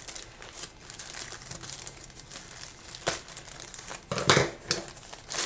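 Parcel packaging crinkling and rustling as hands work at a package that is hard to open, with two louder rips or scrapes about three and four seconds in.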